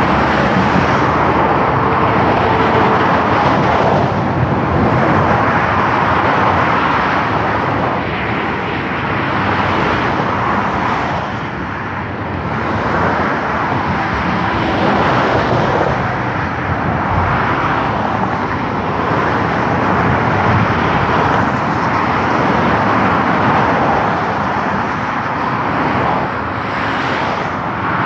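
Continuous noise of cars and lorries driving at speed on a multi-lane autobahn, tyres and engines swelling and easing as vehicles pass; it dips briefly about twelve seconds in.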